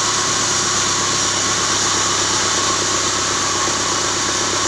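Band saw wood-splitting machine running steadily: a constant low hum under a loud, even high-pitched hiss.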